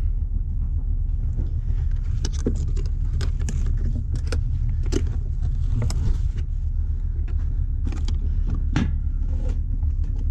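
Heavy diesel truck engine idling with a steady low rumble, with scattered clinks and knocks from a tow chain and hook being handled.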